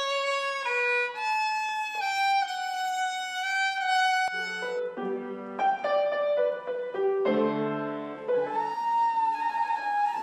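A violin plays a melody of held, bowed notes. About four seconds in, a piano takes over with a short phrase of struck notes and low chords. Near the end a ney, the end-blown reed flute, plays a long breathy held note.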